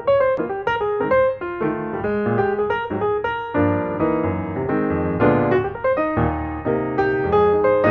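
Background music: piano playing a light melody of quick, evenly spaced notes.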